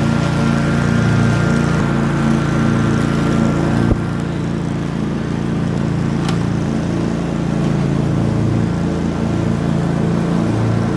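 Gas-powered lawn mower engine running steadily while mowing. A single sharp click about four seconds in, after which the engine is slightly quieter.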